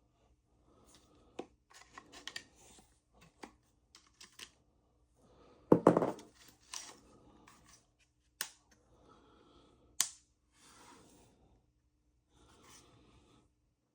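Packaging being handled and opened during an unboxing: intermittent rustling and tearing with scattered sharp clicks, the loudest a burst of handling noise about six seconds in.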